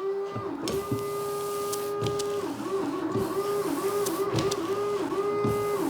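Small electric motor in a BMW E31 840Ci's windscreen wiper and washer system whining steadily as the washers are tried. Its pitch dips repeatedly about halfway through.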